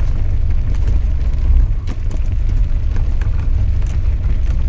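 Jeep engine running as it drives down a muddy track, heard from inside the cab as a loud, steady low rumble, with scattered light knocks and rattles over it.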